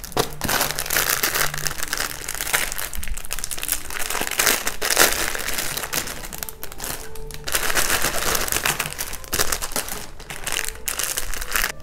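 Packaging crinkling and rustling in irregular bursts as items are unwrapped by hand, with quiet background music under it.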